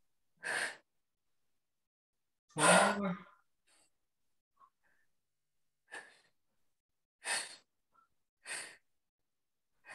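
A person's hard breaths out under exertion during toe-touch crunches: about five short exhales a second or more apart, the loudest, about three seconds in, a voiced sigh.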